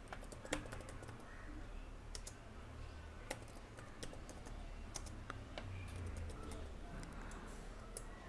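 Computer keyboard keys clicking in scattered single strokes as text is typed, over a faint low hum.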